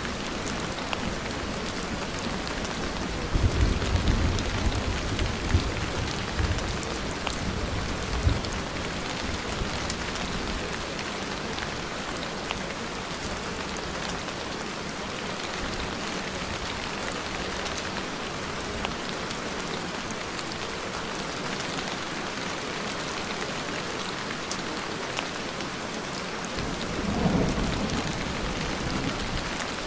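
Steady rain falling, with low rolls of thunder: one from about three to eight seconds in and another near the end.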